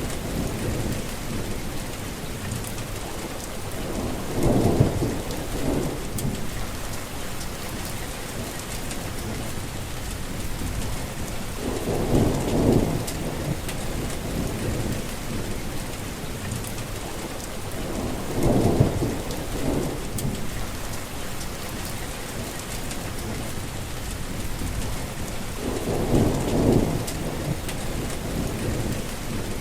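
Heavy rain falling in a steady hiss, with a low thunder rumble swelling up four times, about every seven seconds.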